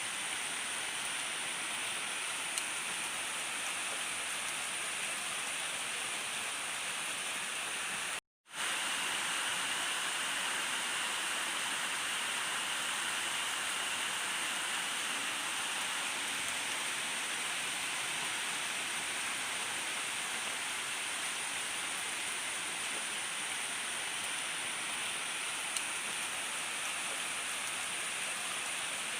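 Steady rain falling, an even hiss with no thunder. About eight seconds in, the sound cuts out completely for a split second and then resumes.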